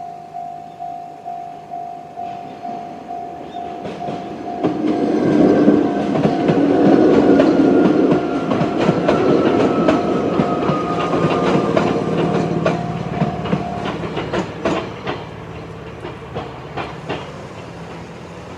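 Japanese level-crossing alarm with the JR Central-type electronic tone dinging about twice a second while a Chichibu Railway 7500 series electric train passes over the crossing, wheels clacking over rail joints with a faint falling whine. The alarm stops about 14 seconds in, and the wheel clicks fade as the train moves away.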